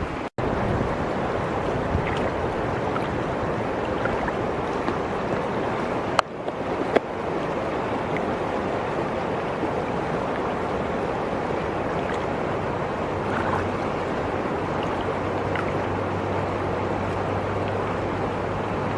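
Steady rush of flowing river water, broken by short sharp gaps near the start and again about six to seven seconds in.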